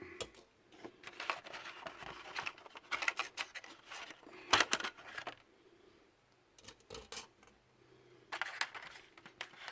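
Plastic model-kit parts and paper being handled: irregular rustling and clicking in bursts, with a quiet pause of a few seconds in the middle.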